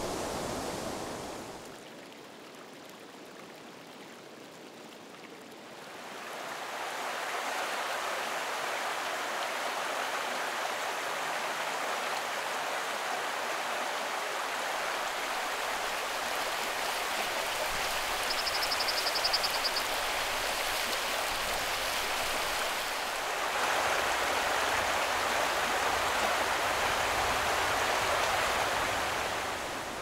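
Rushing river water, a steady rush that grows louder a few seconds in and steps up again past the middle.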